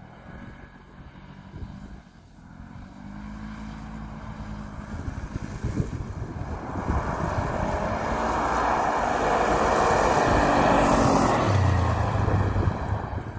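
Polaris RZR 900 side-by-side's engine running as it drives on the ice. The sound is low about two seconds in, then grows steadily louder to a peak near the end and eases off as the machine comes close and passes.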